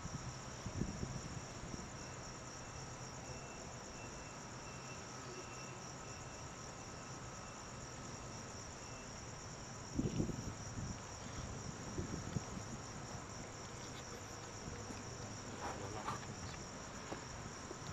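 Night insects chirring steadily in a high-pitched, continuous band. A few brief low rumbles come about a second in and again around ten seconds in.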